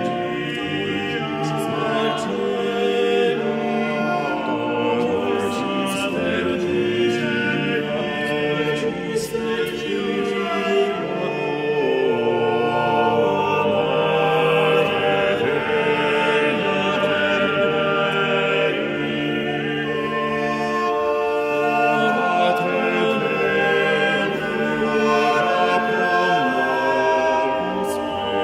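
Unaccompanied male vocal ensemble singing Renaissance polyphony, several voices holding long, overlapping lines from bass up to a high countertenor part.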